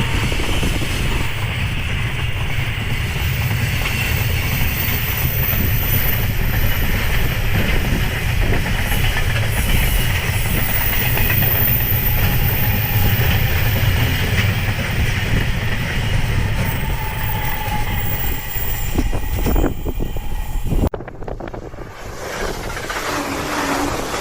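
JR Freight freight train hauled by an EF210 electric locomotive passing at speed: a steady loud rumble of wagons with wheels clattering on the rails. The rumble drops off sharply about 21 seconds in.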